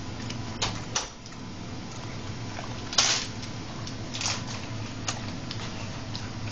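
Bull terrier licking and smacking at sticky peanut butter on its mouth and foreleg: irregular wet smacks and clicks, the loudest about three seconds in, over a low steady hum.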